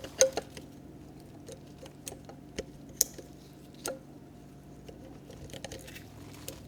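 Scattered sharp metallic clicks and taps of snap rings, pliers and steel transmission parts being handled on a workbench, with the loudest clicks about a quarter second in and about three seconds in.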